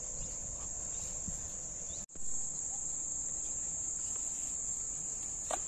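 Crickets trilling in one steady, unbroken high-pitched drone, cut off briefly about two seconds in.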